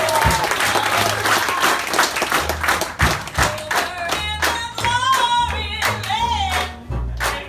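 Jazz band in full swing with an audience clapping along on the beat. A woman sings over a plucked double bass from about four seconds in.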